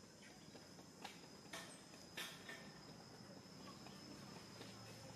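Near silence: faint outdoor ambience with a steady high-pitched drone, and a few soft clicks between about one and two seconds in.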